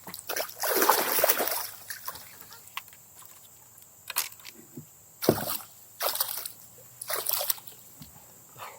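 Water splashing in a series of irregular splashes: a longer one about a second in, then several short ones.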